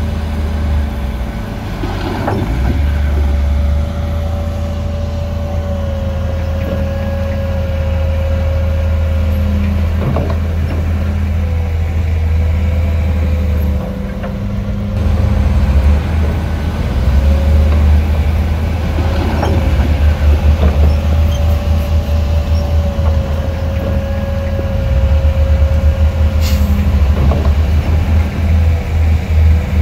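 Heavy diesel earthmoving machinery running under load: a deep engine rumble with a steady high whine that wavers slightly in pitch. A few sharp metallic knocks are scattered through it, and the rumble turns into a fast pulsing in the second half.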